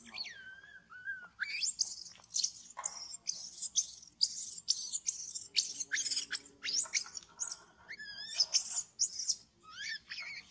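Infant macaque squealing: a rapid string of shrill, high-pitched cries, several a second. It opens with a long falling whine.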